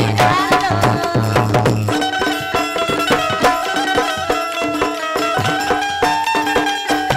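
Bundeli folk song: a woman's sung line over drums for about the first two seconds, then an instrumental passage of held notes and quick, even drum strokes.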